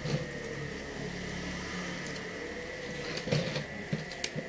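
Steady electrical-sounding hum with a few light clicks and knocks about three seconds in and near the end, as of objects being handled.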